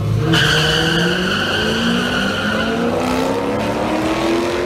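Two cars launching side by side down a drag strip, one of them a C5 Corvette with its V8. Their engines rev up under full acceleration, rising steadily in pitch, with tire squeal starting about a third of a second in.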